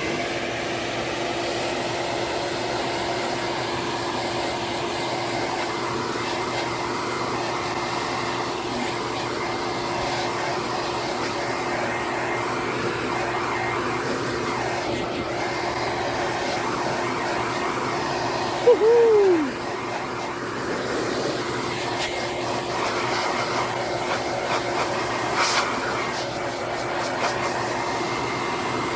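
Electric blower running steadily with a motor whine as it blows dust, dander and feathers out of an air purifier filter. About two-thirds of the way through there is a brief louder sound that falls in pitch.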